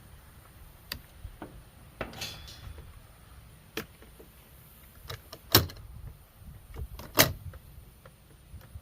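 Scattered clicks and knocks of hand tools and parts while a refrigerator is being stripped for scrap. A short rattle comes about two seconds in, and two sharp knocks, the loudest sounds, come about five and a half and seven seconds in.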